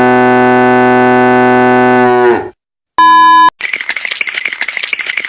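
A cow's moo, used as a sound effect, held long at one steady pitch and cutting off about two and a half seconds in. A short loud beep follows about three seconds in, then a railroad crossing bell starts ringing rapidly.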